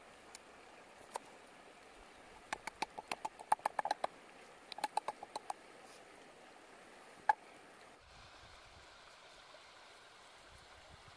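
Large knife chopping lemongrass on a round wooden chopping board: two quick runs of sharp taps, about eight a second, and a single chop a couple of seconds later. Steady rush of river water throughout.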